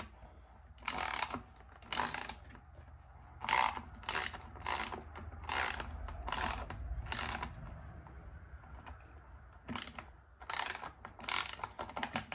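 Socket ratchet clicking in short back-and-forth bursts as a 7/16 socket loosens a chainsaw's bar nuts, pausing for about two seconds past the middle.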